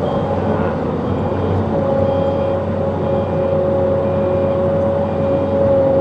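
Zoomlion ZE215E excavator heard from inside the cab: the diesel engine runs steadily under load, and a steady hydraulic whine sets in about two seconds in as the boom and bucket are worked.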